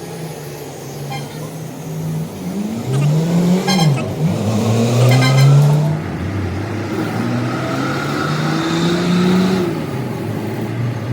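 Motor vehicle engines running, their pitch rising and falling several times as they rev, loudest in the middle, with some brief rattling.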